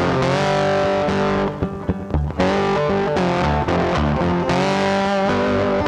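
Rock music with distorted electric guitar and bass. It thins out briefly about a second and a half in.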